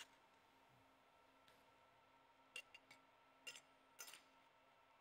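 Thin 0.090-inch aluminum coupons clinking lightly as they are handled and set down on a welding table: a few short clicks about two and a half seconds in, then a couple more near the end, over a faint steady hum.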